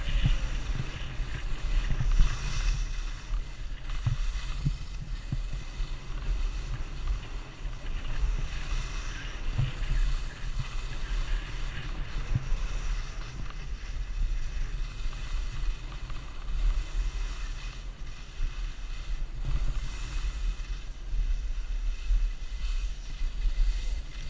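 Wind buffeting the microphone of a helmet-mounted camera on a downhill ski run, with the hiss of skis sliding on packed snow swelling and fading from turn to turn.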